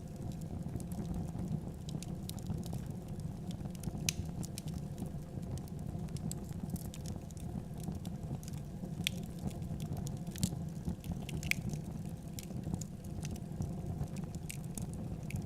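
Wood fire burning in a fireplace: a steady low rumble of flame with irregular sharp crackles and pops.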